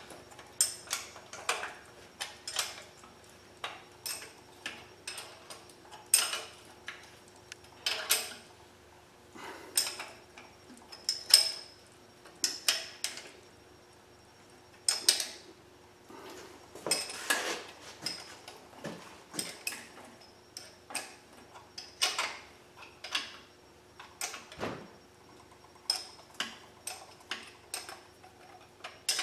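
Metal clicks and clinks of a hand wrench tightening the intake manifold bolts on a small-block Chevy V8, coming in irregular runs of quick ticks with short pauses between.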